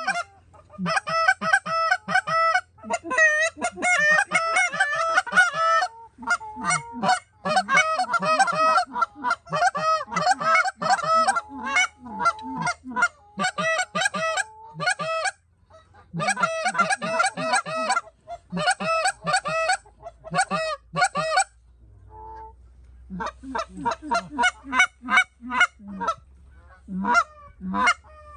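Canada goose honks and clucks, many short notes a second, overlapping in bursts with brief pauses and a lull about 22 seconds in.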